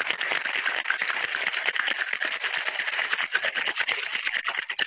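Ice rattling inside a two-piece metal cocktail shaker (tin on tin) shaken hard in a fast, even rhythm, chilling and diluting a daiquiri.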